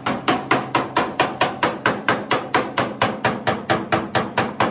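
Small hammer rapidly tapping along the welded seam of a steel pickup-bed panel, an even run of about four to five blows a second, each with a short metallic ring.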